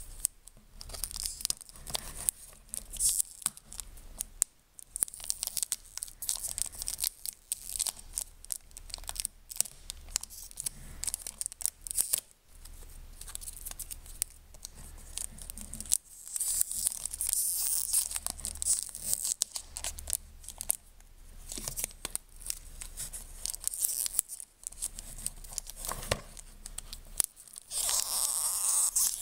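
Clear cellophane wrap on a small cardboard cologne box being picked at and peeled off by fingers, crinkling and crackling in irregular bursts with many small sharp clicks. Longer stretches of crinkling come midway and near the end.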